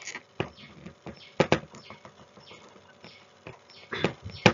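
A few sharp clicks and light knocks over a quiet room: two close together about a second and a half in, and a louder pair near the end.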